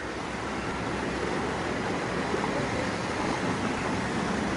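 Muddy floodwater carrying mud and stones rushing down a street, a steady rushing noise.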